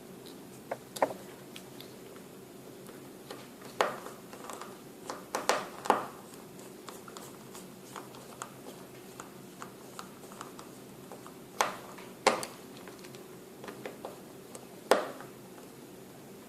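Scattered sharp plastic clicks and taps as a Samsung Galaxy S3's middle frame is pressed and snapped back onto the phone, about a dozen irregular clicks over a faint steady hum.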